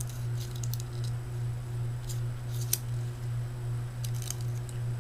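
Steady low hum of an electric fan running, with scattered light clicks and ticks of hands handling a model and its packaging, one sharper click a little under three seconds in.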